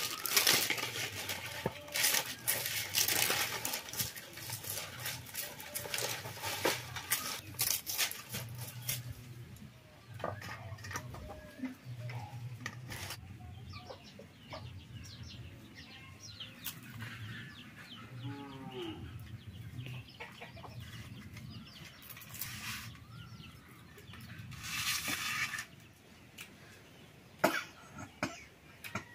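Dry, charred leaf wrappers crackling and tearing as they are peeled off a leaf-baked chicken pitha, dense for roughly the first nine seconds and then sparser. Chickens clucking now and then.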